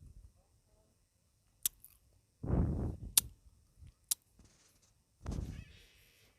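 Close-up eating sounds of a person eating chicken noodles: two bursts of chewing and slurping, with three sharp clicks in between.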